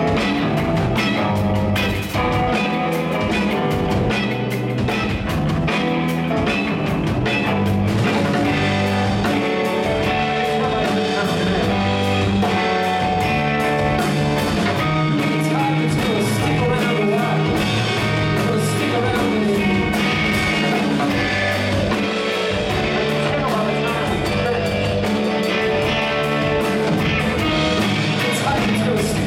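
Live rock band playing: distorted electric guitars over bass and a drum kit, loud and steady throughout.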